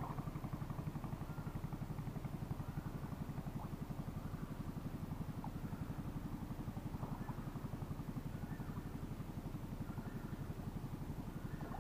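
A small engine running steadily, a low, fast, even beat that holds through.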